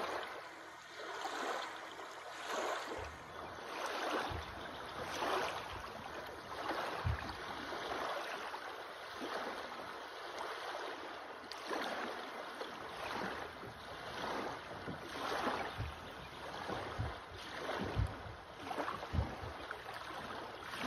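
Small river waves washing and lapping over a shallow sandbank, swelling and fading every second or two, with a few short low thuds.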